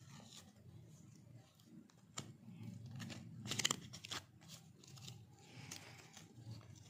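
A stack of Pokémon trading cards being handled and leafed through, the cards sliding and flicking against each other in soft scrapes and clicks, with a louder crackle about three and a half seconds in.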